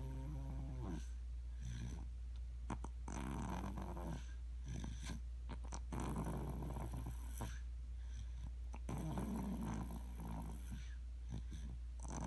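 Snoring in slow, regular breaths about every three seconds, each one a drawn-out, rough, pitched rumble. A steady low hum lies underneath.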